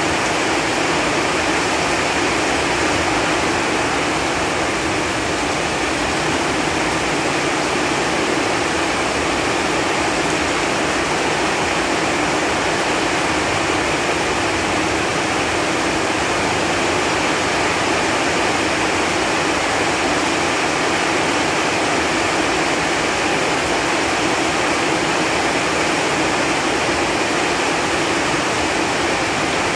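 Steady rain falling on leaves, a dense even hiss in which no single drops stand out.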